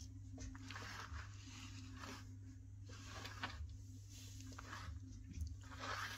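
Faint rustling and scraping as a switched-off corded jigsaw and its power cord are handled and lifted off a tiled floor, in several soft patches.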